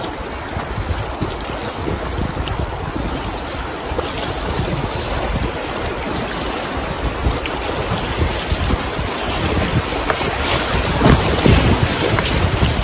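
Creek rapids rushing and splashing around an inflatable kayak running whitewater, with wind buffeting the microphone. The rush grows louder toward the end, with heavier splashes.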